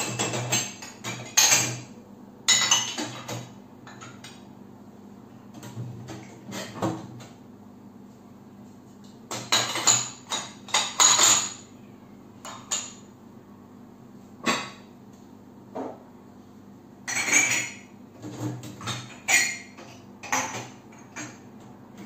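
Ceramic mugs and glass cups clinking against each other and rattling on the dishwasher's wire upper rack as they are lifted out one by one, in irregular bursts of sharp clinks. A faint steady hum runs underneath.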